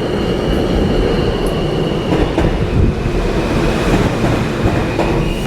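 New York City subway train running through a station: a low rumble of wheels on the rails with a high steady whine over it.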